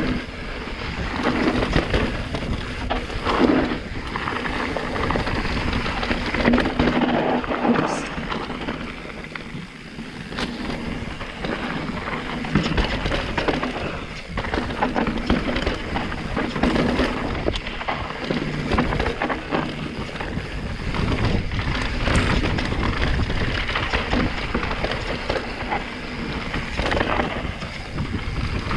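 Santa Cruz Megatower enduro mountain bike descending a rocky trail at speed, recorded raw on a bike- or helmet-mounted action camera. Tyres rumble over dirt and stones while the bike rattles and knocks with each hit, in a steady stream of irregular clacks.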